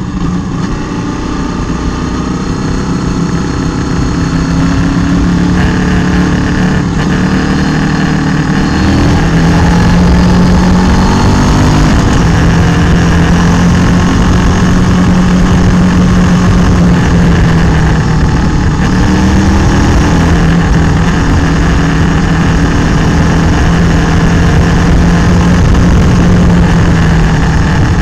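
Motorcycle engine running under way at road speed, its tone shifting with throttle and gear changes through the bends, mixed with wind noise on the bike-mounted microphone. It grows louder over the first several seconds, then holds steady.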